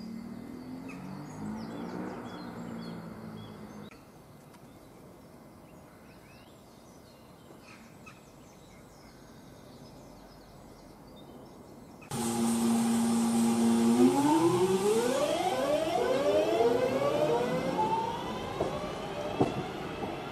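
A diesel passenger train pulling away: its engine and transmission note cuts in suddenly about twelve seconds in, holds steady, then climbs in pitch in several steps as it accelerates. Earlier a fainter engine note, then a quieter stretch with birds chirping.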